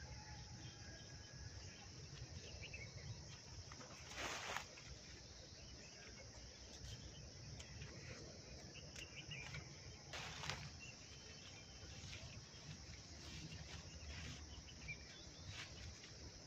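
Steady high chirring of insects, with two brief rustles of leafy branches being handled, about four and ten seconds in.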